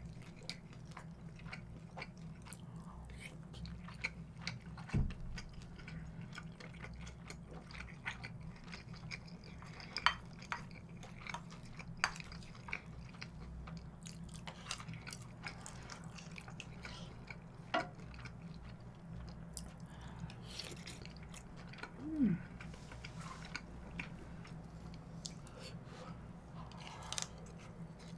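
Close-miked chewing of a mouthful of fried rice, with scattered sharp clicks and small mouth sounds over a faint steady low hum.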